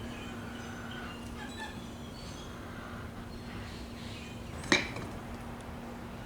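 Faint scattered chirping over a steady low hum, with one sharp click about three-quarters of the way through.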